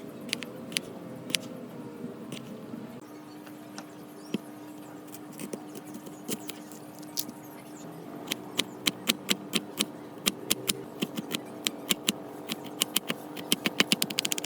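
A run of sharp taps and clicks, a few at first, then coming several a second over the second half, over a faint steady hum.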